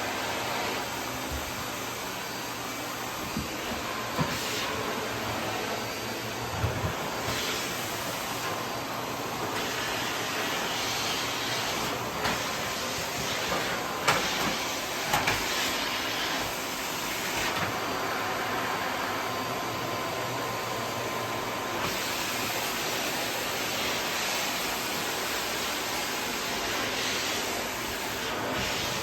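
Vacuum cleaner running steadily, with a few short knocks standing out over its continuous noise.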